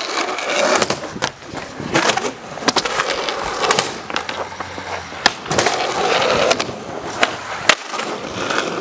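Skateboard wheels rolling on asphalt and ramp surfaces, with several sharp clacks of the board hitting the ground and ramp along the way.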